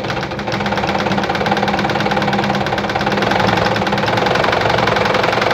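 Juki DIA Rotary 7 sewing machine running at a steady speed, sewing a straight stitch, with a rapid, even ticking that stops near the end.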